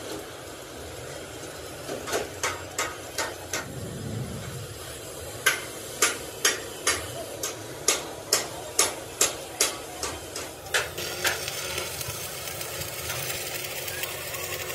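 Hammer blows on steel: a few scattered strikes, then a steady run of about a dozen blows at roughly two a second that stops near eleven seconds, leaving a steady low noise.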